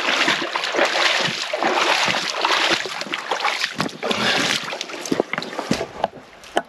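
A person wading through knee-deep river water in waders: legs sloshing and splashing with each step, louder for the first four seconds or so, then thinning out to lighter lapping.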